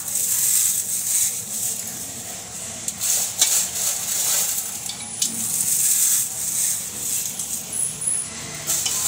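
Vegetable masala sizzling in a kadai over a gas flame: a steady hiss that swells and fades, with a couple of faint clicks.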